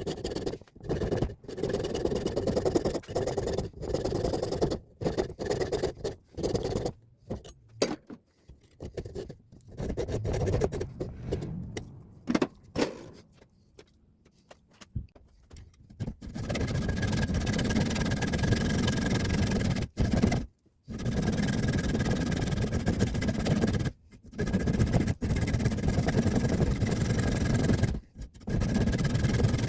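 Bandsaw with a metal-cutting blade running and cutting along the side of an old cleaver's wooden handle, through the wood and the pins that hold it to the tang. In the first half the sound starts and stops abruptly many times; from about halfway it runs steadily with a thin, high whine.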